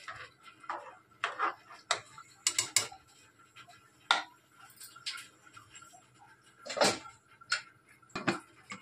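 Steel spatula scraping and clinking against the inside of an aluminium pressure cooker while gently stirring a wet mix of rice and soya chunks: scattered, irregular scrapes and taps, the sharpest about four seconds in and again near seven seconds.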